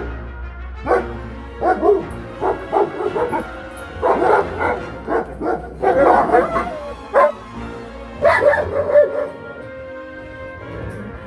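German Shepherd dog vocalising in a quick run of short barks and yips, some drawn out and wavering, over background music.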